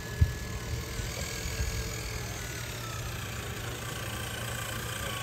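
Electric motors and geared drivetrains of RC crawler trucks (a Traxxas TRX-4 Defender and an Axial SCX10 III Jeep Gladiator) whining faintly at low speed as they wade through a puddle, the whine drifting slightly down in pitch. A single knock about a quarter second in.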